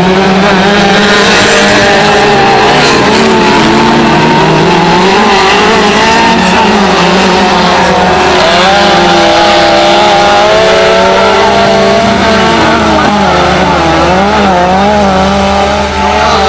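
Autocross race cars running flat out on a dirt track, engines revving high with the pitch rising and falling continually.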